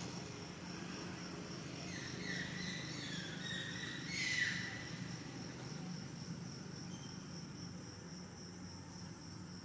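Insects, cricket-like, trilling steadily in a high, rapidly pulsing tone. Between about two and four and a half seconds in, a few short higher calls fall in pitch, the loudest near the end of that stretch, over a faint low hum.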